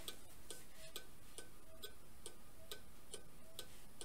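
Cuckoo clock's pendulum movement ticking steadily, a little over two ticks a second.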